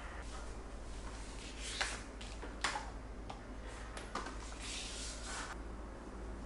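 Soft handling sounds of things being moved around: a few light clicks and taps about two and three seconds in, then a short rustle like a bag or packaging being shifted.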